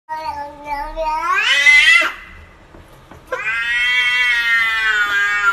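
Domestic cat yowling: one drawn-out call rising in pitch that breaks off about two seconds in, then after a short pause a second long, steady yowl.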